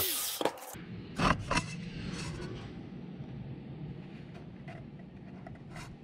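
Light knocks and scrapes of a plastic fender flare being handled on a wooden workbench, a few scattered taps over a low steady hum. A hiss cuts off within the first second.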